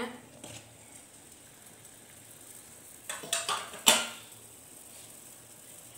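A glass pot lid with a metal rim lifted off a stainless steel cooking pot and handled, with a few light clinks about three seconds in and one sharp metallic clank just before four seconds.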